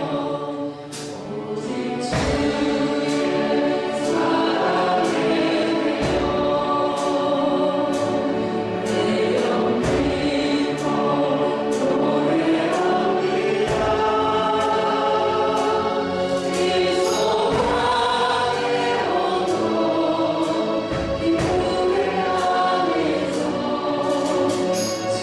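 A church praise team singing a worship song in several voices, with instrumental accompaniment and a steady beat.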